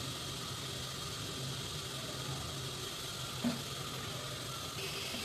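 Steady kitchen background hiss with a low hum, and one soft tap about three and a half seconds in as cut pieces of dough are moved on a wooden board.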